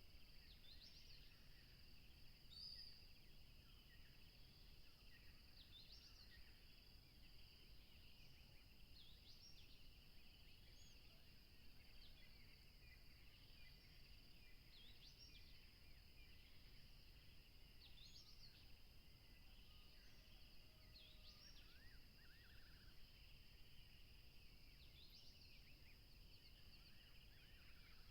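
Faint birds chirping, short sweeping calls every few seconds, over a steady high insect drone in a quiet natural ambience.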